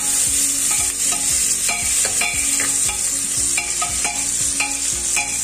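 Sliced onions and green chillies sizzling in oil in an aluminium pressure cooker, with a slotted spatula scraping and knocking against the pot about twice a second as they are stirred.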